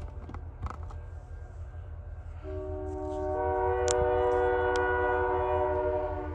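Wisconsin Southern freight locomotive's multi-chime air horn blowing one long chord, starting about two and a half seconds in, swelling and fading near the end, over a low steady rumble.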